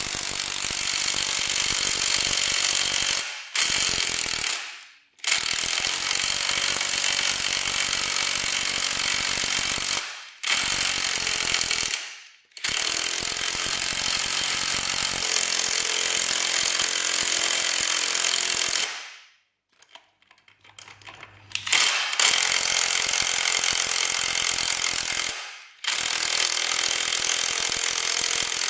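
A power tool driving a bolt home on a 1996 Yamaha YZ125's swingarm, running in repeated bursts of a few seconds. Each burst winds down as the trigger is let go, with a longer pause about two-thirds of the way through.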